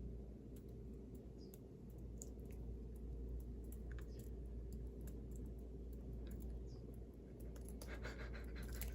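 Close-miked chewing and mouth sounds from eating pizza: scattered small clicks and crackles, denser near the end, over a steady low hum.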